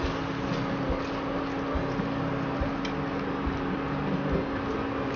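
Pigeon induction cooktop running, its cooling fan humming steadily at one pitch, with soft stirring of a silicone spatula through prawns and spring onions in a nonstick pan and a few faint clicks.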